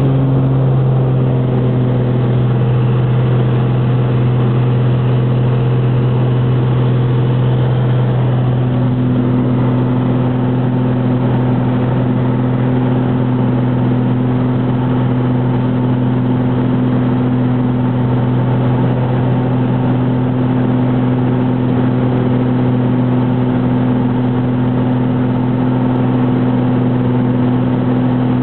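Light ski plane's engine and propeller droning steadily as heard inside the cabin in flight, with a slight shift in the engine note about eight seconds in.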